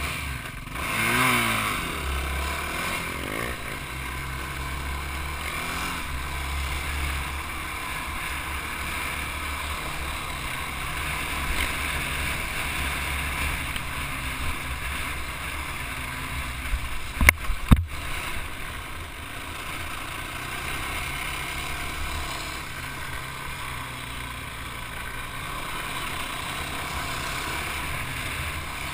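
Dirt bike engine running steadily as the bike is ridden over a rough dirt trail. The engine revs up and down about a second in. A few sharp knocks about 17 seconds in are the loudest sounds.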